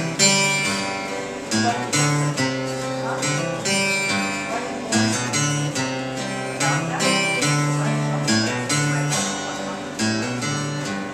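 Acoustic guitar strummed in a steady rhythm through chord changes: the instrumental break of a live country-folk song, with no singing.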